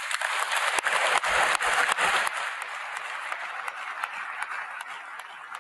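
Audience applause, dense for the first two seconds and then slowly thinning and fading.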